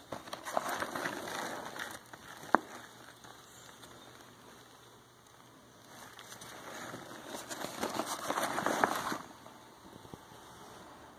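Rustling and crackling of a fabric backpack being handled and its pockets opened, louder about two-thirds of the way through, with a single sharp click a couple of seconds in.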